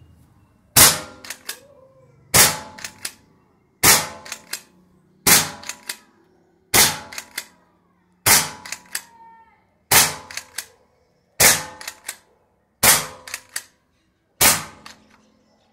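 Shark CO2 slide-action air rifle, 5.5 mm, firing ten shots about a second and a half apart, each crack followed by a couple of short clacks. The whole magazine is being fired off, and each pellet feeds after a repair to the magazine rod that had stopped them feeding.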